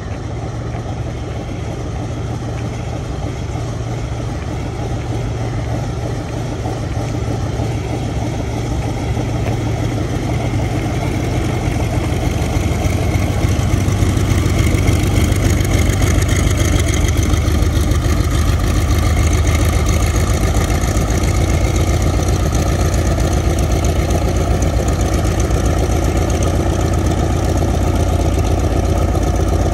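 Vought F4U-7 Corsair's Pratt & Whitney R-2800 18-cylinder radial engine and propeller running at low taxi power with a rapid, even beat. It grows louder about halfway through as the fighter taxis closer and swings past.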